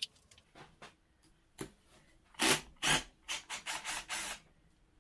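Cordless power driver backing out a screw from the aluminium crankcase of a Yamaha PW80 engine, run in about six short trigger bursts over two seconds, with a single knock just before them.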